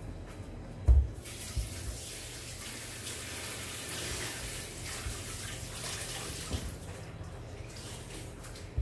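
Water running from a tap for several seconds, starting just after a low thump about a second in, with a few lighter knocks while it runs.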